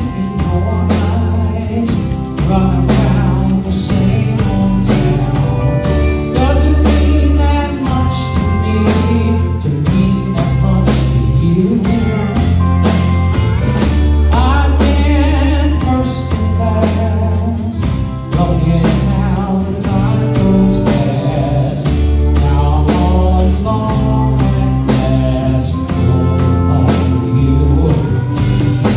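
Live band playing a song: a singer with acoustic guitar, backed by pedal steel guitar, electric guitar, drums and steady bass notes, with a regular drum beat.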